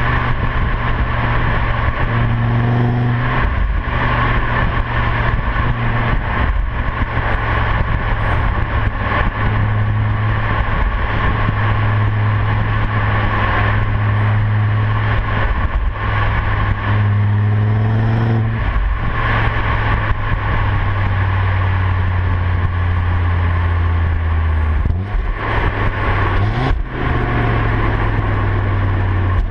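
Stock 2011 Audi RS3 Sportback's turbocharged 2.5 TFSI five-cylinder engine and exhaust running in a steady drone, broken several times by brief dips and short rising revs.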